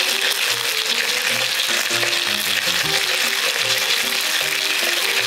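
Beef and beef fat sizzling steadily in a hot pan, over background music with a plucked-sounding melody of short notes.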